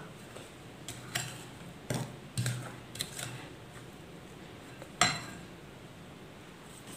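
A plastic spoon stirring flour into butter and sugar in a glass bowl, knocking against the glass a few times, with one louder knock about five seconds in.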